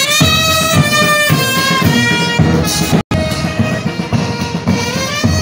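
A military brass band playing, trumpets holding notes over the beat of bass drums. The sound drops out for an instant about three seconds in.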